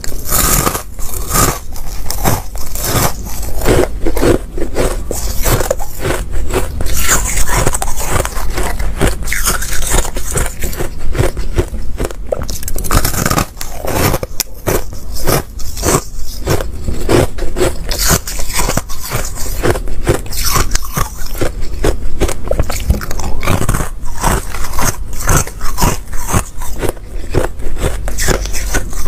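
White, frosty ice being bitten and chewed: a continuous run of crisp crunches, one after another, with no pauses.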